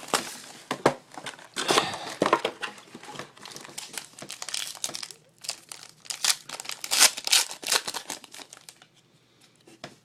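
Trading card pack wrappers and box packaging being torn open and crinkled by hand, a dense run of irregular sharp crackles and rustles that dies away about nine seconds in.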